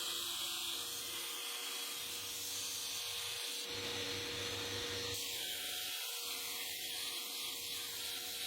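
An electric power tool running steadily, with a constant motor hum under an even abrasive hiss, as when the saw-blade steel is being ground or sanded.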